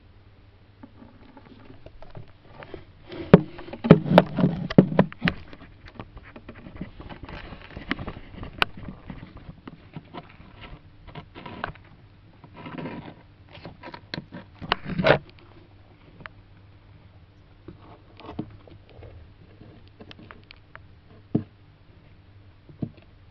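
Irregular scrapes, clicks and knocks of tortoise shells and claws on soil and stones, busiest for a couple of seconds about three seconds in, then scattered single clicks, over a faint steady hum.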